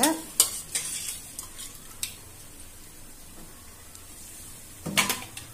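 Raw mutton pieces going into a steel kadai of hot fried masala: a few sharp clatters of pieces and ladle against the pan in the first two seconds, then a faint steady sizzle, with another short clatter about five seconds in.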